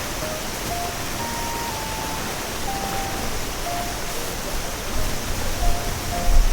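A simple background tune played as single plain notes, one at a time, over a steady loud rushing hiss; low rumbling buffets come in near the end.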